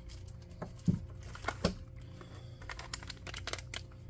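Unpacking noise from a plastic-bagged speaker and its cable being lifted out of a foam-lined cardboard box: scattered light clicks and taps, with a few louder knocks between about one and two seconds in.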